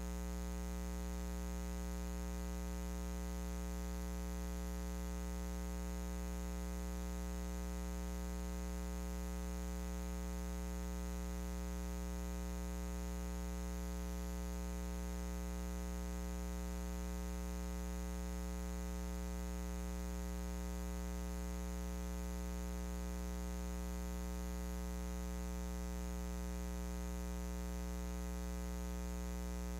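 Steady electrical mains hum with a ladder of overtones and a faint hiss, unchanging throughout.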